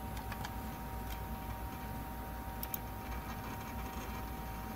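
Steady hum of a running SGI Indy workstation, with a constant two-note whine from its fan and 15,000 RPM SCSI drive. A few faint clicks over it, the sharpest about two and a half seconds in.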